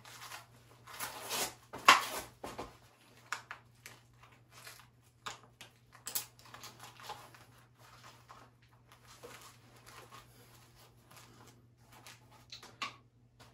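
Nylon webbing of a battle belt rustling and scraping as it is fitted and adjusted around the waist, with scattered clicks and knocks from its buckle and pouches; the loudest is a sharp click about two seconds in.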